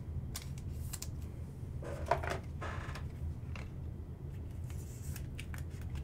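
Plastic rustling and light clicks as a trading card is slid into a soft plastic sleeve and then into a rigid plastic card holder, over a steady low hum.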